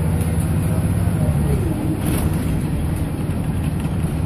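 Diesel engine of a Scania L94UB city bus running, heard from inside the passenger cabin. A short whine falls in pitch about a second and a half in.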